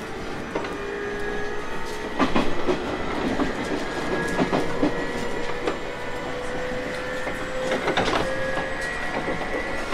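Running sound of a JR East 719 series electric multiple unit: a hum rising slowly in pitch through the whole stretch, with the wheels knocking over rail joints a few times.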